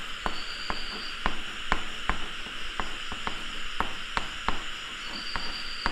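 Chalk on a blackboard while handwriting is written: irregular taps and short strokes, about two or three a second, over a steady background hiss.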